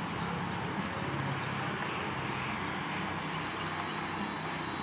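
Steady outdoor background noise with a low rumble, like wind and engine noise on a field microphone; no distinct events stand out.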